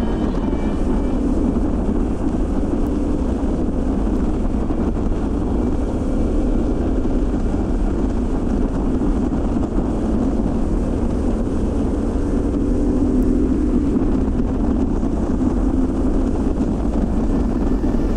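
Harley-Davidson Pan America Special's Revolution Max 1250 V-twin running at a steady highway cruise, with wind and road rush on the bike-mounted camera.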